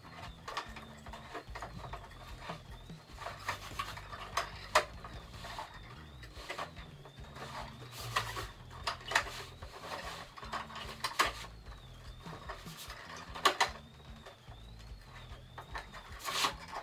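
Scattered clicks and knocks from hand-handling a Volvo estate's load-space cover blind, its plastic roller and end caps knocking and the fabric being rolled up onto the roll.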